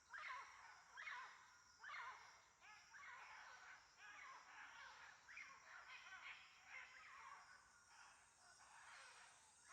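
Birds calling over and over, a call about once a second, each sweeping down in pitch, with later calls overlapping, over a steady high insect hiss.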